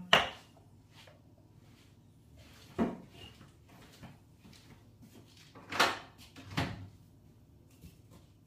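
Kitchen cupboard doors or drawers knocking shut and open, four separate clunks: one at the start, one about three seconds in, and two close together about six seconds in.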